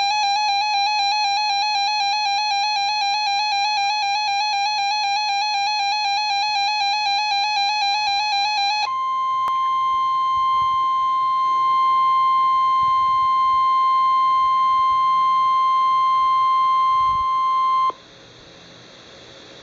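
A weather radio alarm: first a rapidly warbling electronic beep for about nine seconds, then the NOAA Weather Radio 1050 Hz warning alarm tone, a single steady high tone, for about nine seconds. The tone cuts off suddenly and leaves faint radio hiss. Together they signal an incoming warning broadcast.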